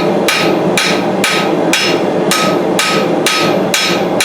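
Light forging hammer striking a knife blade on the anvil about twice a second, each blow ringing: light finishing blows shaping the blade rather than heavy forging. A steady roar runs underneath.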